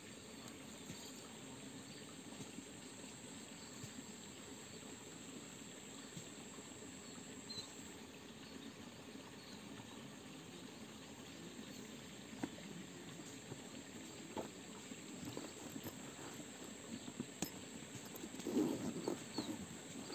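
Faint outdoor ambience by a small stream: a low, even trickle of water with a thin, steady high whine that stops about eight seconds in. Near the end come a few louder, irregular rustling and handling sounds in the bankside vegetation.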